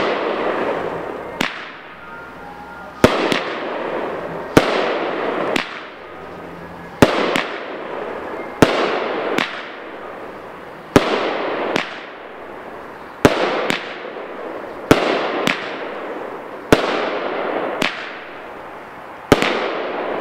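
The 16-shot 'Best in Field' consumer firework cake firing shot after shot, a sharp bang every second or two, some in quick pairs. Each bang trails off in about a second of crackling hiss as the crackling tails, glitter and strobe effects break.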